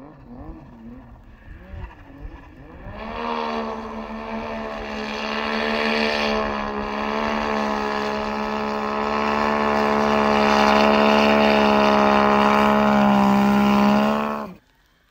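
Yamaha Sidewinder snowmobile's turbocharged three-cylinder four-stroke engine revving unevenly under throttle in deep powder, then held at high revs in a steady, loud drone for about ten seconds before cutting off suddenly near the end.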